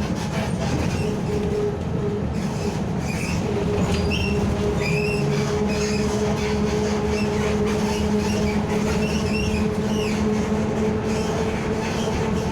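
A vehicle creaking as it moves along: short high squeaks come again and again over a steady running hum with two held tones.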